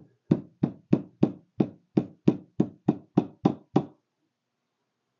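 About a dozen light hammer taps, about three a second, on the metal edge of a garden-tractor ignition switch housing, stopping about four seconds in. The taps are crimping the housing's outside edge back over the switch's white plastic body to close the switch up.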